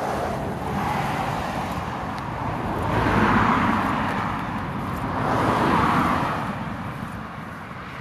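Cars passing along a wet road close by, tyre hiss swelling and fading three times, loudest about three seconds in and again near six seconds.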